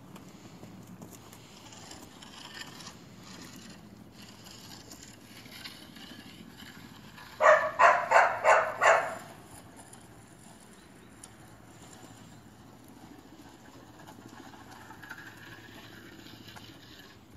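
A dog barks about five times in quick succession, about seven and a half seconds in, loud over a faint background in which a horse's cantering hoofbeats can be made out.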